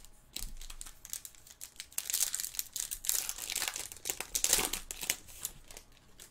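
Foil wrapper of a Topps Chrome baseball card pack being torn open and crinkled by hand, a crackling that comes and goes in several bursts, loudest around two seconds in and again near four and a half.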